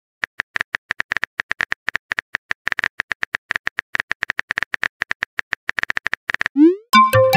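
Keyboard typing clicks from a texting-app animation, a quick run of many short taps. They stop about six and a half seconds in, followed by a short rising swoop and a chime as the message is sent.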